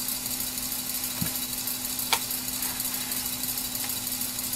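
Plastic LEGO bricks being handled: a soft knock about a second in and one sharp click about two seconds in, over a steady low hum and hiss.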